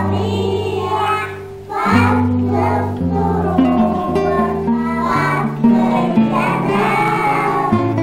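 A group of young girls singing together in unison over instrumental accompaniment with held bass notes that change every second or two. The singing drops away briefly just before two seconds in, then picks up again with the next phrase.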